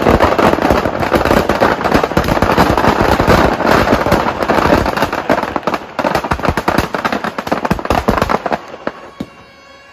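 Firecrackers packed inside a burning Ravana effigy going off in a rapid, dense barrage of cracks and bangs as the effigy goes up in flames. The barrage cuts off suddenly about eight and a half seconds in.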